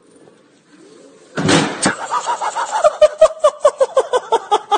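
A thump as a person falls off a hoverboard onto a tile floor, about a second and a half in, followed by a run of high-pitched laughter, about five short bursts a second.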